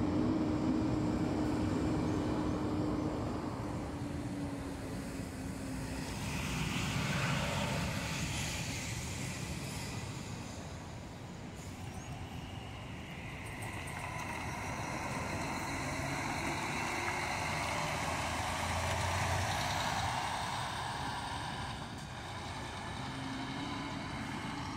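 Double-decker Marcopolo G8 coach pulling away at low speed with its diesel engine running and a brief hiss of air about seven seconds in, followed by steady road traffic noise.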